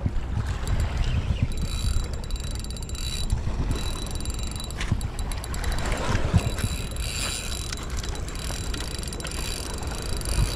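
Fishing reel ratcheting in runs of rapid clicks while a large fish is fought on the line, over a low rumble.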